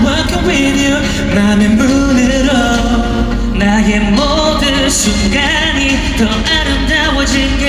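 Pop song performed live through a concert sound system: a male vocal group singing over an amplified instrumental with a steady bass.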